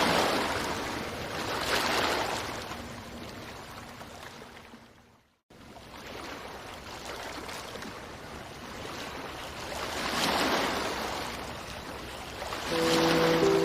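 Ocean waves washing in and drawing back, in slow surges a few seconds apart. The sound fades almost to nothing about five seconds in, then cuts back in abruptly.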